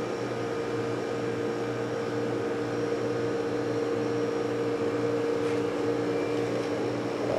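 A motor-driven power tool running at a steady speed with a constant hum, cutting off sharply at the end.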